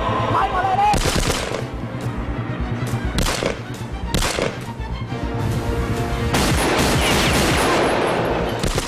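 Gunfire in a staged gunfight: single shots in ones and twos, then a longer stretch of rapid fire from about six seconds in, over a bed of action music.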